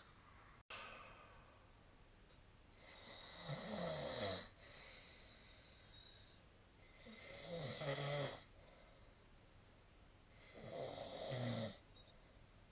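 A sleeping person snoring: three snores, each about a second and a half long and growing louder until it stops, spaced about three and a half seconds apart.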